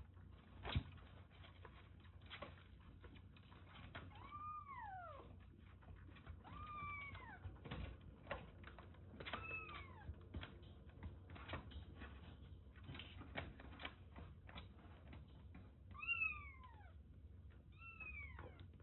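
A young kitten mewing five short times, each call rising and then falling in pitch, over soft clicks and smacks of suckling on a milk bottle, with a sharper click about a second in.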